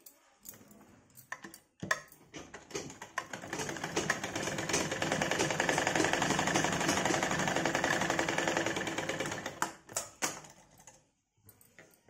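Domestic sewing machine stitching through cotton fabric. After a few clicks it picks up speed about two seconds in, runs fast and steady, and stops about ten seconds in.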